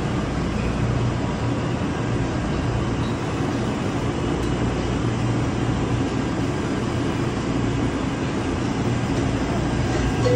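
Steady low rumble and hum of the Plane Train, an automated people-mover train, heard from inside the car as it runs along its guideway.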